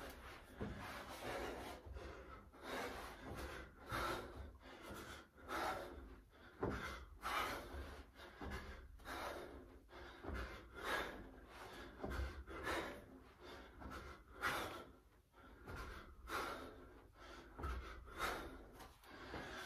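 A man's breathing in and out in rhythm with sit-ups, one breath sound about every second.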